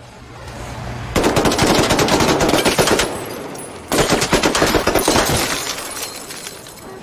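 Patchett 9 mm submachine gun firing two long bursts on full automatic. The first burst comes about a second in and lasts nearly two seconds; after a short pause, a second burst lasts about a second and a half.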